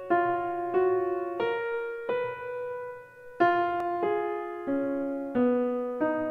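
Intro music: a keyboard, piano-like, plays a slow line of single notes, each struck and ringing away, about one every two-thirds of a second. Around the middle the notes fade out briefly, and a louder note picks the line up again.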